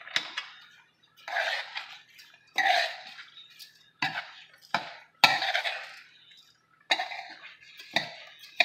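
Metal spoon stirring raw rice into seasoning and pigeon peas in an aluminum pot. The spoon scrapes and knocks against the pot in separate strokes, roughly one a second.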